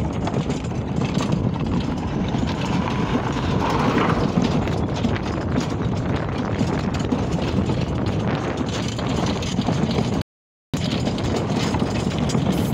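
Wooden horse-drawn cart rolling over a gravel road: a steady rattle and crunch of the wheels, chains and harness, with the horse's hoofbeats on the stones. The sound cuts out completely for about half a second just after ten seconds in.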